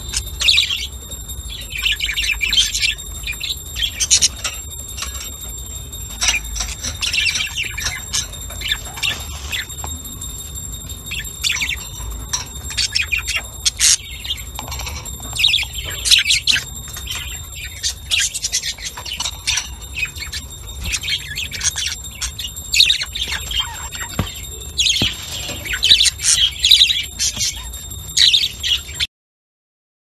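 A small flock of budgerigars chirping and chattering in short irregular bursts, with clicks, over a faint steady high-pitched tone. The sound cuts off abruptly about a second before the end.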